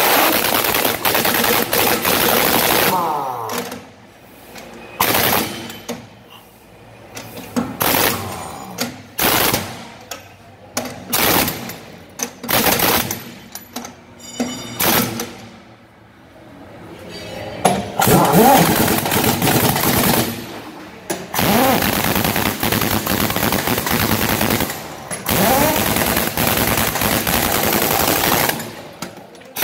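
Pneumatic impact wrench hammering on a truck's wheel nuts: long runs of rapid rattling, with a few seconds of short bursts and gaps between nuts in the middle.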